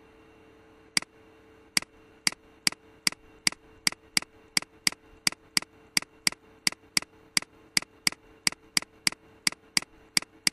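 Computer mouse button clicking rapidly and evenly, about three sharp clicks a second, starting about a second in, as eraser strokes are made. A faint steady hum runs underneath.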